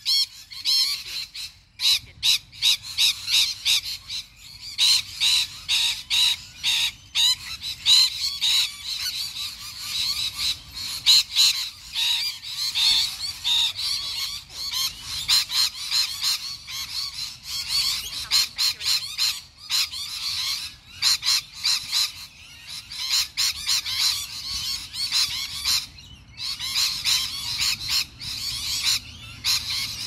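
Rainbow lorikeets calling: a continuous, rapid stream of shrill chattering notes, with a short lull a few seconds before the end.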